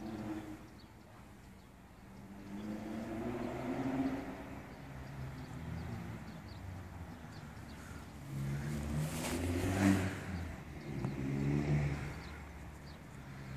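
Motor-vehicle engines passing by, their running swelling and fading several times, loudest about four seconds in and again near ten and twelve seconds.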